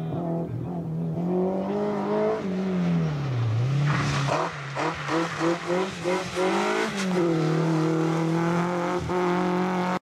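Renault Clio rally car's engine running at high revs and dipping briefly about three seconds in. It then pulses unevenly, about three times a second, for a few seconds before pulling steadily at high revs again.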